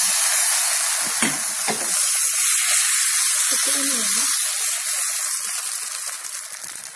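Pandan crepe batter sizzling in a hot, oiled non-stick frying pan just after being poured in: a steady, loud hiss that eases slightly toward the end.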